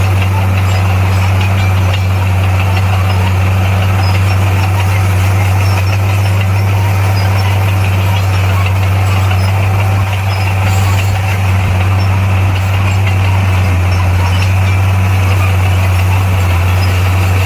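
Diesel engine of a bulldozer running at a steady speed, a continuous deep drone that barely changes.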